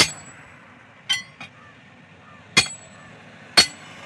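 A hammer striking metal: about four sharp, ringing blows spaced roughly a second apart, with a lighter tap just after the second.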